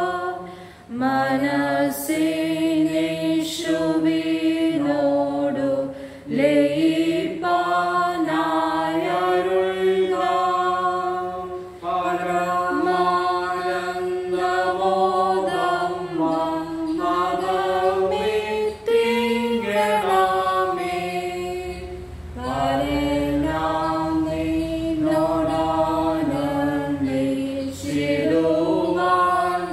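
Voices singing a Malayalam hymn together, phrase by phrase, with short breaks for breath between lines.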